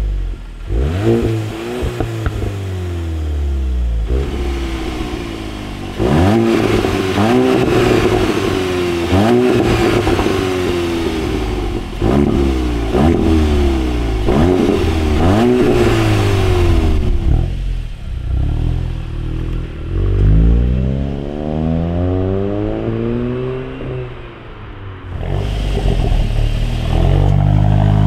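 Volkswagen Golf GTI Mk8's 2.0-litre turbocharged four-cylinder revved through its exhaust in short blips, one after another about once a second. It is heard first with the stock rear muffler and then with a retrofitted Clubsport rear muffler. Later one long rev rises and falls, and near the end the car pulls away accelerating.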